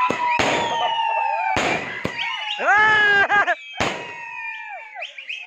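Fireworks set off at close range: sharp firecracker bangs every second or two, mixed with whistling fireworks whose shrill whistles slide down in pitch. A ground fountain firework sprays sparks.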